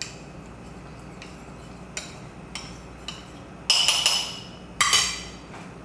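A metal spoon clinking against a small bowl while stirring a cornstarch-and-water slurry used to thicken stew. There are a few light taps, then two louder ringing clinks, about four and five seconds in.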